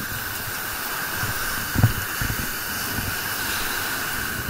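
Ocean surf washing up onto a sandy beach, a steady hiss of breaking foam with low rumbles, and a single dull thump about two seconds in.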